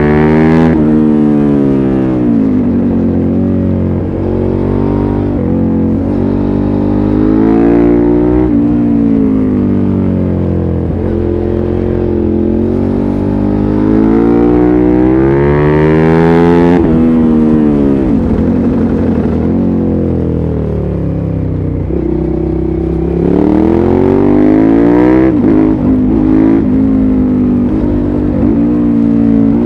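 The 645 cc V-twin of a 2005 Suzuki SV650S, running through a LeoVince aftermarket exhaust. The engine note climbs under throttle and falls back several times as the bike is ridden hard.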